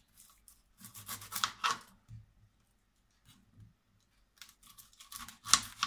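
Onions being handled: dry rustling and scraping in two spells, with a sharp knock near the end.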